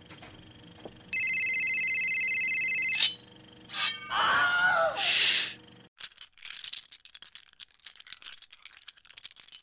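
A steady electronic ring with a fast flutter for about two seconds, then lightsaber sound effects: a click, a falling swoosh and a hiss. After that comes a long crackling run of small clicks and rattles.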